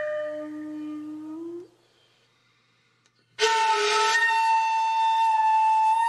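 Background flute music: a melody fades out, there is a gap of silence, then a long held flute note returns suddenly about three and a half seconds in.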